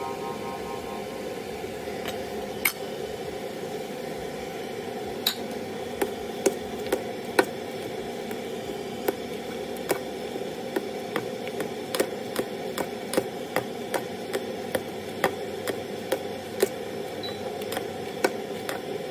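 Metal tongs clinking against a thin aluminium ramyeon pot as the noodles are stirred and lifted, sharp irregular clicks about one or two a second, over a steady hiss.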